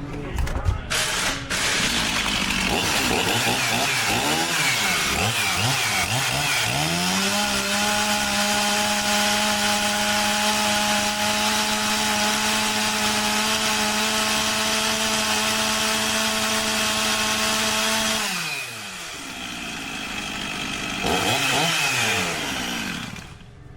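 Two-stroke chainsaw engine revved up and down several times, then held at a steady high speed for about ten seconds before dropping back. It revs up once more near the end and falls away.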